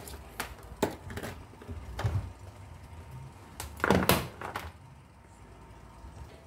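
A few light knocks and clicks, then a louder clatter about four seconds in, as an analogue multimeter is picked up and handled against the plastic back cabinet of a CRT television.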